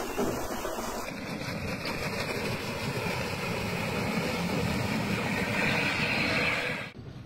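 Engine of a homemade 18-wheeled ATV running steadily as the machine is driven, with a higher whine that grows stronger over the last few seconds. The sound drops off suddenly near the end.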